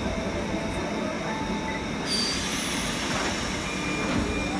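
JR West 201 series electric train moving slowly along the platform, its wheels squealing in several thin, steady tones that come and go over the rumble. About two seconds in, a sudden hiss joins in.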